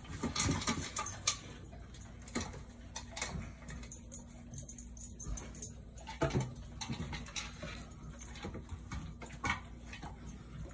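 A large dog eating dry kibble from a plastic slow-feeder bowl: irregular crunching, with clicks and knocks of kibble and muzzle against the bowl. There is a quieter stretch about halfway through.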